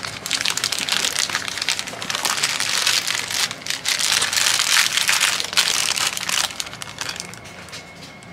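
Thin clear plastic bag crinkling and rustling as it is handled and paper medicine packets are drawn out of it. The rustling thins out after about six and a half seconds.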